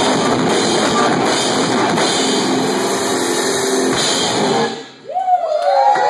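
Heavy rock band playing live, a drum kit and an electric guitar together at full volume. The song breaks off about five seconds in and is followed by a wavering pitched tone that slides up and down.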